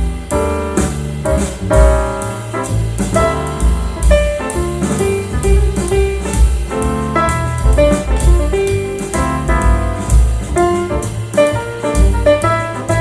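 Instrumental music with piano and drums playing through a pair of Klipsch R-51M bookshelf speakers, picked up by a microphone in the room; the drums keep a steady beat.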